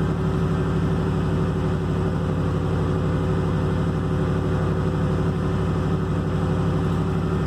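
Ford F-150 engine running steadily at idle while the scan tool's key-on engine-running self-test is in progress.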